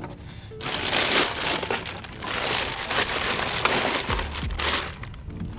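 Clear plastic bag holding freshly caught fish crinkling and rustling as it is handled inside a cooler.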